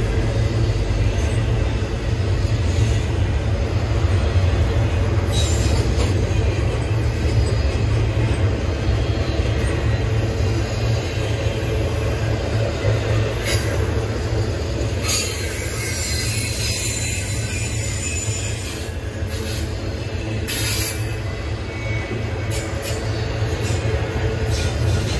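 Double-stack intermodal well cars of a Norfolk Southern freight train rolling past, a steady low rumble of steel wheels on rail. Brief high-pitched squeals from the wheels come through a few times.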